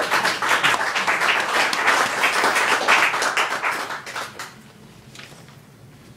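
Audience applauding; the clapping is dense at first and fades out about four seconds in.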